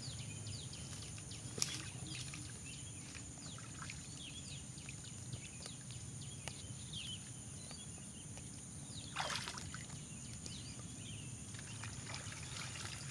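Quiet sloshing and trickling of shallow paddy water, with small clicks and rustles of dry coconut fronds being handled as a fish trap is set and covered. A steady high whine runs in the background, and one louder sound comes about nine seconds in.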